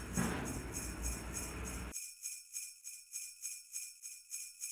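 Sleigh-style jingle bells shaken in a steady rhythm, about four shakes a second, as a festive sound effect. For the first two seconds they sit over outdoor background noise, which then cuts off suddenly, leaving only the bells.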